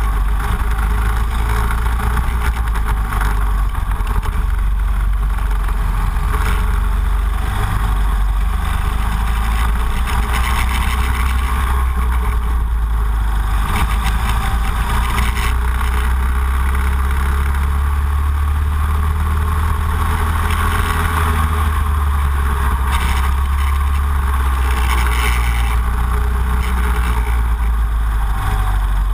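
Racing go-kart's engine running at speed on track, its note swelling and easing as it goes through the corners and straights, under a strong steady low rumble.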